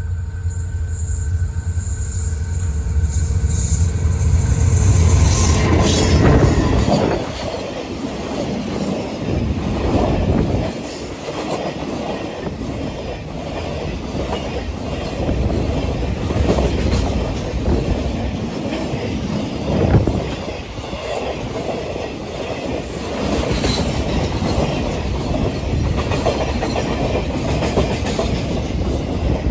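Freight train passing behind an SDA-3 diesel-electric locomotive. The locomotive's engine drone builds and is loudest about five to six seconds in, then the wagons roll by with a rhythmic clickety-clack of wheels over rail joints.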